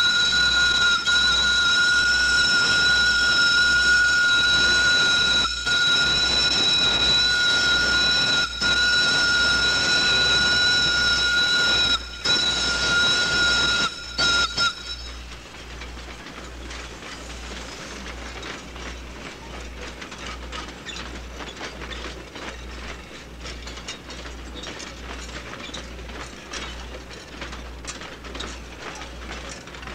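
Steam locomotive whistle blowing one long, steady high-pitched blast with a few brief breaks, cutting off suddenly about halfway through. A quieter rattle of scattered clicks follows, like railway coaches rolling past.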